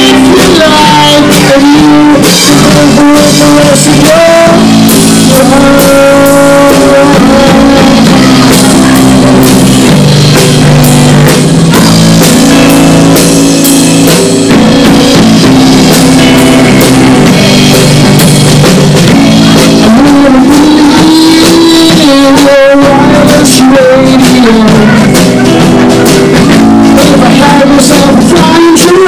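Live rock band playing loud: electric guitar, bass guitar and drum kit, with sung vocals.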